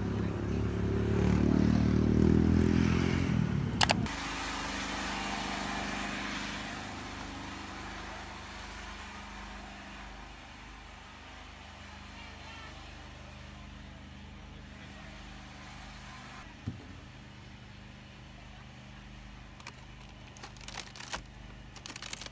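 A motor vehicle engine running close by, loudest about two seconds in, cut off suddenly about four seconds in. A low steady hum follows, with a few crackles of plastic packaging near the end.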